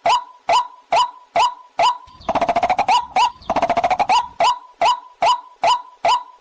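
Waterhen call played as a trapping lure: one short note repeated evenly about twice a second, each note dipping then rising in pitch. From about two seconds in to about four and a half seconds, a rapid rattling call overlaps the notes.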